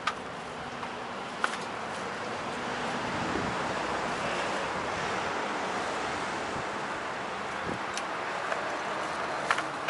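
Steady rushing wind and tyre noise of a moving bicycle, picked up by a handlebar-mounted action camera, swelling a little in the middle, with a few sharp clicks.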